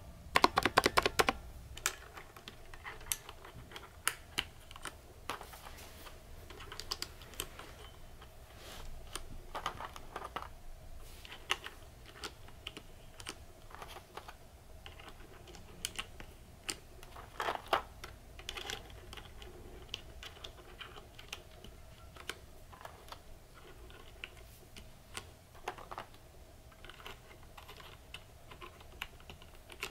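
Mechanical keyboard with red-stem switches: a quick run of key presses at the start, then scattered single clicks and clacks as keycaps are pressed onto the bare switch stems.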